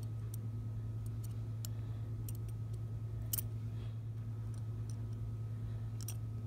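Scattered faint clicks of metal dissecting forceps and scissors working at a pinned earthworm, the sharpest about three and a half seconds in, over a steady low hum.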